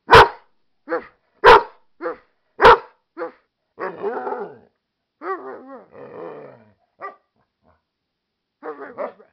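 American Staffordshire terrier/pit bull mix barking: three loud sharp barks in the first three seconds, with softer short sounds between them. Then a drawn-out, wavering vocalising whose pitch bends up and down for about three seconds, and a few short sounds near the end.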